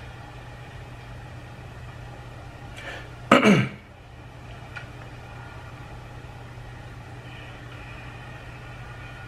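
A closet door swinging open with one short, loud creak that falls quickly in pitch, about three seconds in, over a steady low hum.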